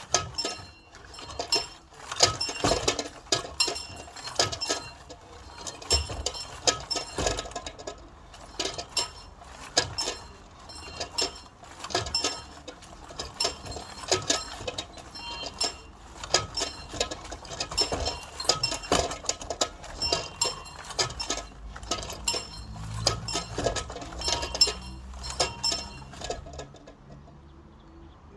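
A small bell rung over and over at an uneven pace, roughly one or two strokes a second. Each stroke leaves a high, clinking ring that dies away before the next.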